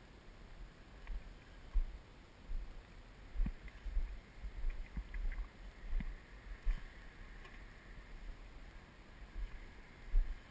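Low rumbling wind and handling noise on an action camera's microphone as it is carried about, with irregular bumps and a few faint high ticks around the middle.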